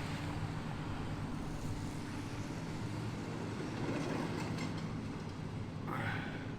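A steady low engine hum, most likely the heavy demolition machinery at work, with a short noisy rasp near the end.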